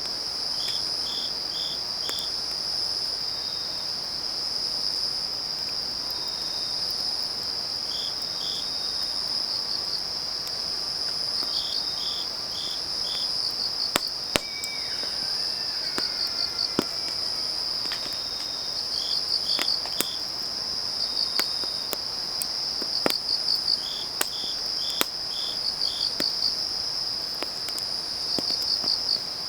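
Autumn crickets trilling steadily, with a second insect chirping in short groups of three or four. A wood fire crackles over them, its sharp pops coming more often in the second half.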